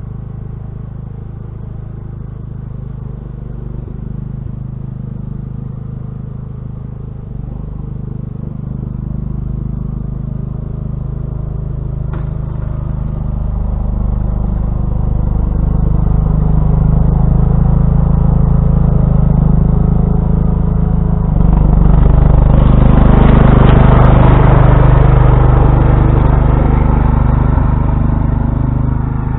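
Old Sears Craftsman lawn tractor engine running steadily and growing louder as the tractor approaches while plowing snow. It turns louder and harsher about three-quarters of the way through.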